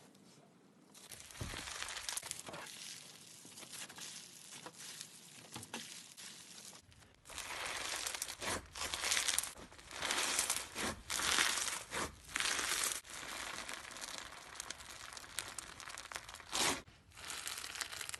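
Hands squeezing and stretching slime, making a dense run of small pops and crackles. Softer for the first several seconds, then louder, with a stretch of loud crackling bursts in the middle.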